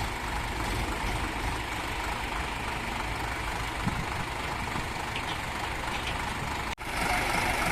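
Heavy diesel truck engine running steadily at low revs. Near the end the sound breaks off for a split second and comes back louder.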